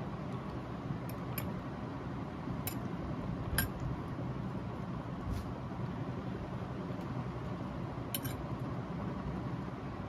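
Stainless steel chopsticks clinking lightly against each other and the paper bowl while picking up spaghetti: a few irregular clicks over a steady background hum.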